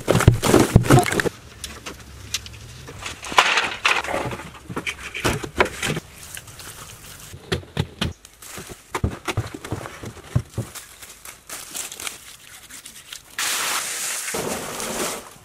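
Hand tools chopping into hard earth, with irregular strikes and the scrape and crumble of loose dirt. Near the end this gives way to a steady rush of water pouring down a shaft.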